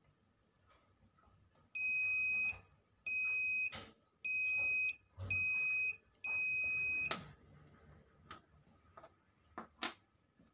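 Continuity-tester buzzer beeping five times in a row, each a steady high tone under a second long, as the test probes are touched across the legs of an IRFZ44N MOSFET. Each beep means the tester finds the pins conducting. Light clicks of the probe tips and a few handling knocks come near the end.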